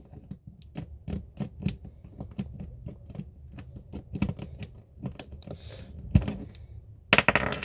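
Irregular light plastic clicks and taps as an action figure's loose head is twisted back and forth on its neck joint, with a louder burst of noise near the end.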